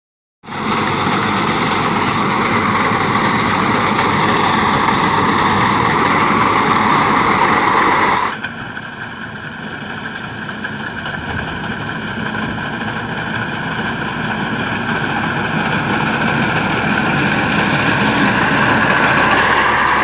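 Tractor engine running steadily under load while driving a front-mounted wheat reaper through standing wheat. About eight seconds in it cuts to a quieter take, which grows steadily louder as the machine comes closer.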